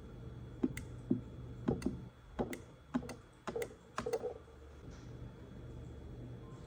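Small plastic push-buttons on a wireless remote controller and wall switch being pressed: a string of sharp clicks over the first four seconds or so.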